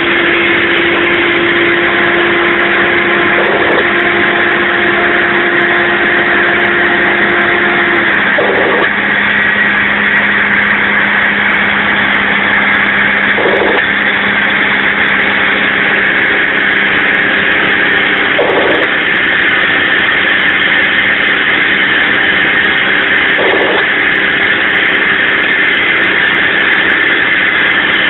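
Mack dump truck's diesel engine pulling under a 17-ton limestone load up a mountain grade, heard from inside the cab as a loud, steady engine and road noise. The engine note shifts about eight seconds in.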